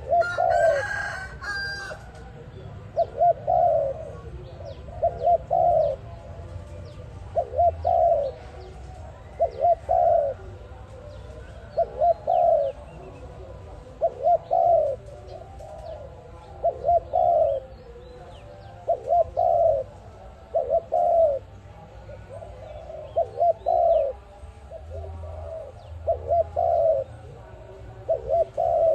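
A dove cooing over and over in short phrases of two or three coos, about one phrase every two seconds. In the first second or two a brief, harsher, higher-pitched call sounds over it.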